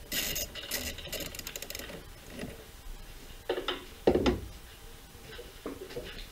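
A 10 mm socket wrench clicking and rattling on a car battery's terminal clamp nut as the battery is disconnected, with a quick run of small metallic clicks. Then two louder dull knocks about three and a half and four seconds in.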